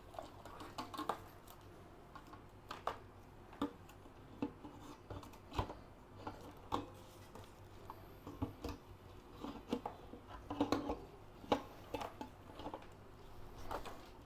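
Irregular small clicks, taps and light knocks of PC hardware being handled and fitted into a small aluminum case, with a few of them louder.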